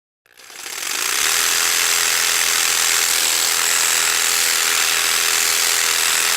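A power tool running steadily, a dense mechanical noise with a high whine, fading in over about the first second.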